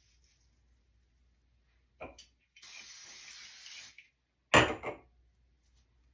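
Paul Mitchell flexible hairspray sprayed onto hair in one steady hiss of about a second and a half, after a brief shorter sound. A loud sharp knock follows, the loudest sound.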